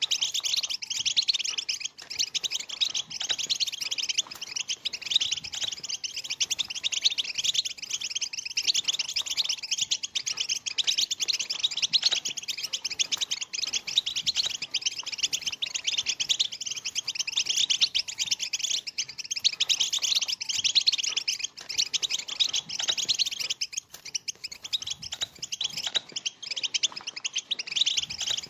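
Many European goldfinches twittering at once: a dense, unbroken chorus of quick high chirps and trills, the goldfinch's chattering call.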